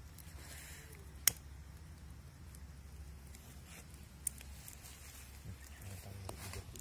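Leaves rustling and crackling as a bundle of leaves is turned in the hands while being lit, with a sharp click about a second in and a smaller one at about four seconds, over a low steady rumble.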